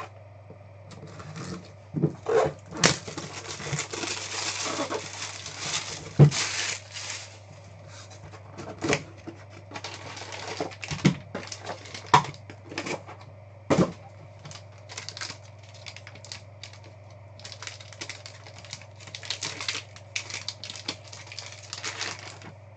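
Trading card packaging being handled and opened: a box lid and foil card packs torn open and crinkled, with sharp clicks and knocks from the packaging on the table, over a low steady hum.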